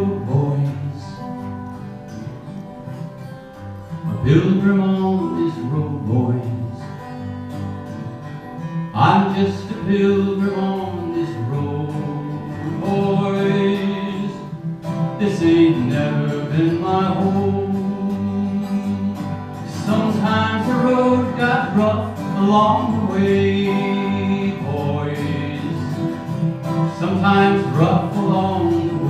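Acoustic guitar played live, an instrumental passage without lyrics.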